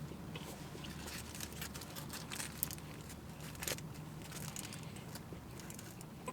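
A person eating a bacon burger close to the microphone: a run of small crackles and crunches, scattered irregularly, over a low steady hum.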